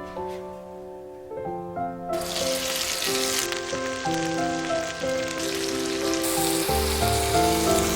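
Food sizzling in a hot cast-iron frying pan, starting about two seconds in, over background piano music.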